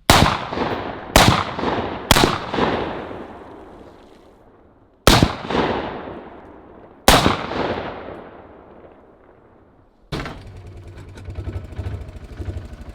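Five shotgun blasts at clay targets, three in quick succession and then two more a few seconds apart, each echoing away over a couple of seconds. About ten seconds in, the sound switches to a steady engine running with a buzzy rattle.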